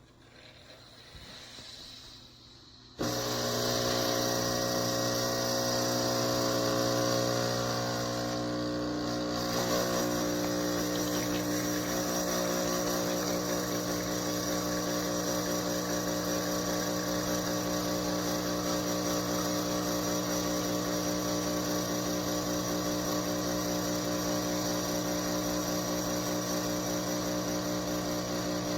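Breville Barista Touch Impress espresso machine's pump running steadily as it pulls an espresso shot; the hum starts suddenly about three seconds in.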